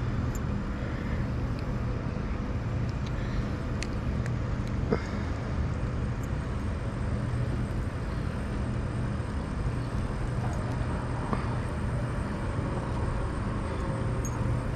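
Steady rumble of road traffic with a low hum, and one light click about five seconds in.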